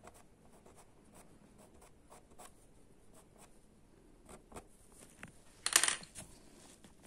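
Pastel pencil tip tapping and scratching on sanded pastel paper in small, separate touches. A short, louder scuff near the end.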